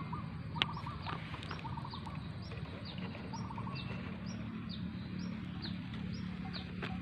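A bird chirping: a run of short, high, falling notes about two a second, with a lower trill in the first couple of seconds. A single sharp click comes just over half a second in, over a steady low hum.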